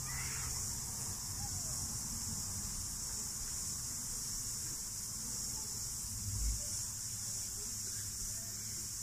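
Steady high-pitched chorus of cicadas over a low steady rumble, with one soft bump a little past six seconds in.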